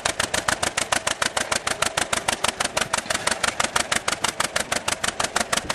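1949 John Deere Model BW tractor's two-cylinder engine running at low speed under way, a steady string of exhaust pops at about seven a second.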